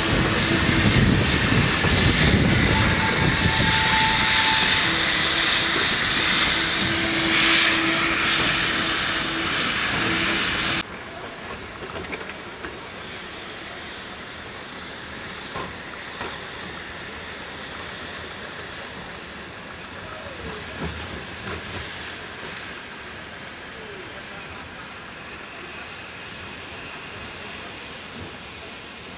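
Small steam locomotive letting off steam: a loud steady hiss with a held note sounding over it at times. About eleven seconds in it cuts off sharply to a much quieter background with a few faint knocks.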